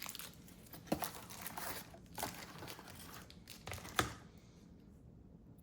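Plastic packaging crinkling and rustling as it is handled, with two sharper clicks, about a second in and about four seconds in. The rustling stops about four and a half seconds in.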